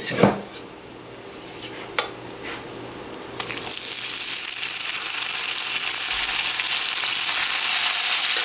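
Boiled broad beans frying in hot oil with cumin and turmeric in a wok. A few short knocks come in the first two seconds, then from about three and a half seconds in there is loud, steady sizzling as a wooden spatula stirs the beans.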